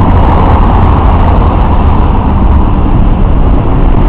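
Loud, steady rumble of road traffic crossing the bridge, heaviest in the low end.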